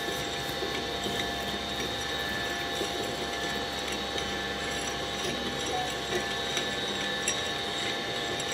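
Shredding machine running empty, its motor and rotating cutter shafts giving a steady mechanical hum with a high whine and a few light clicks.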